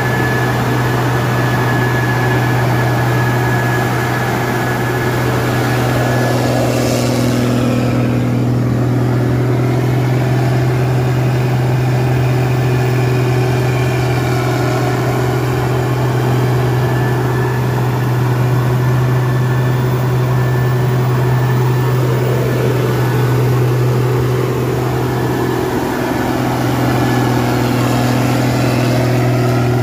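Case 2555 cotton picker running steadily: a strong, even engine and machinery hum with steady overlying tones, and a brief rushing swell about seven seconds in.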